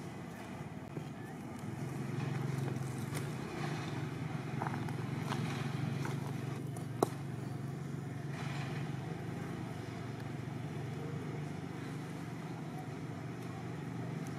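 A steady low engine hum, as from a motor vehicle running off-picture, that comes in about two seconds in and holds steady; a single sharp click about seven seconds in.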